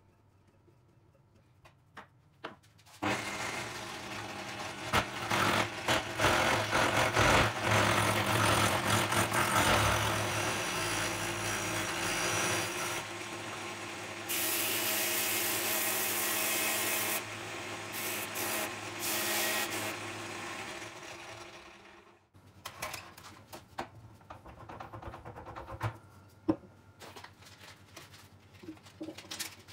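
An angle grinder spinning a pine roller on a homemade drum sander while a flat steel hand tool is held against the wood, scraping and shaving it with a loud rasping hiss over the motor's steady whine. The motor starts about three seconds in and cuts off abruptly about twenty-two seconds in, leaving light handling clicks and rustles of sandpaper.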